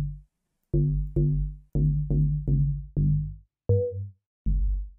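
Synplant 2 software synthesizer playing short synth-bass notes one after another, about two a second, each with a hard attack and a quick decay. Most are on the same low pitch, and one a little past the middle has a different, higher ringing tone. They are the plugin's generated variations of a simple bass sample.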